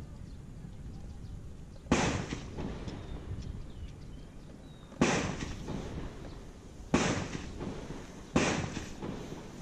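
Gunshots from a shooting range: four sharp reports, the first about two seconds in and the rest coming faster near the end, each trailing off in a rolling echo.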